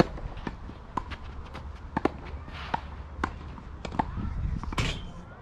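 Tennis ball being served and rallied on a clay court: a string of sharp racket-strike and bounce pops, the loudest one right at the start with the serve, then more about every half second to a second. About five seconds in comes a short rushing burst.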